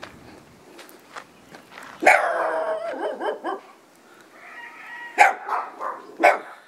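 A small dog barking: a quick run of barks about two seconds in, then two more sharp barks near five and six seconds.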